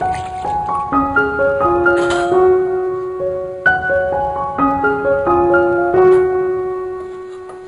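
Background piano music: a melody of single notes over held tones, fading out near the end.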